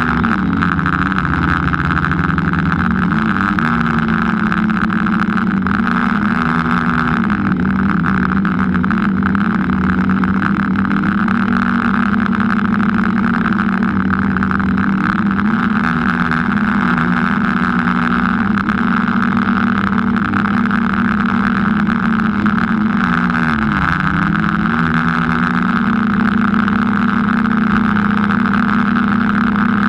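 Motor of the small aircraft carrying the camera, running steadily in flight with a constant hum. About 23 seconds in the pitch drops briefly and comes back up, as the throttle is eased and reopened.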